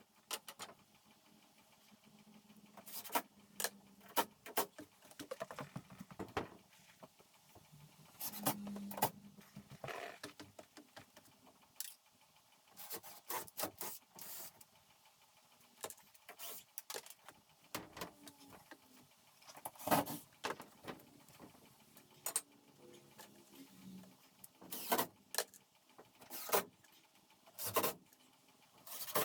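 Irregular clicks, knocks and rattles of drywall installation work, with a couple of brief low hums.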